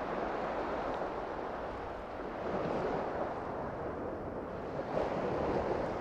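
Sea surf washing onto a beach, a steady rush that swells and eases about three times.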